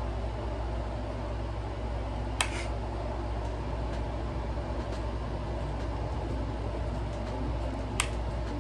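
A steady low mechanical hum, with two sharp clicks: one about two seconds in and one near the end.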